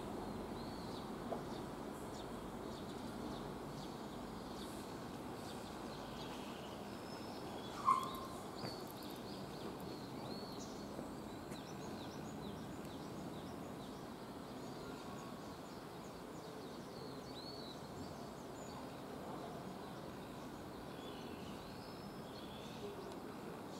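Small birds chirping on and off over steady outdoor background noise, with one short sharp click about eight seconds in.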